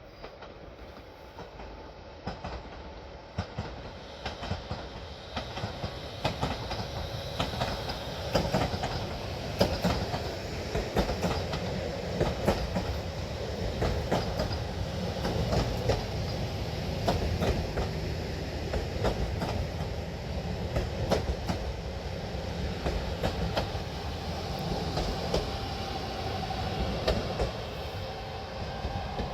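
Passenger train rolling slowly on the rails, its wheels clacking irregularly over rail joints and points under a steady rumble. The sound grows louder over the first several seconds and eases slightly near the end.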